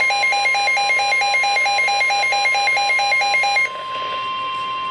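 NOAA Weather Radio warning alarm tone: a loud, steady, single tone near 1,050 Hz, the signal that a warning broadcast is about to follow. For the first three and a half seconds a rapid two-note electronic alarm beep pulses over it, about four times a second, then stops, leaving the steady tone alone.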